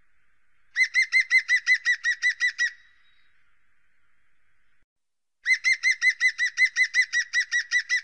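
Great spotted woodpecker calling: two runs of about a dozen sharp, rapidly repeated call notes, roughly six a second, each run lasting about two seconds, with a pause between.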